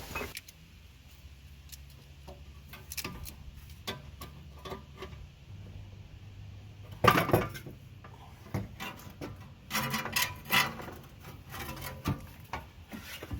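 Scattered metallic clinks and knocks of exhaust parts and hand tools being handled during muffler removal, with one louder clank about seven seconds in and a run of knocks around ten seconds.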